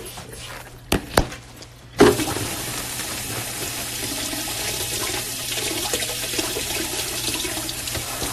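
Two sharp knocks about a second in, then running water starts abruptly and runs steadily, a strong even rush.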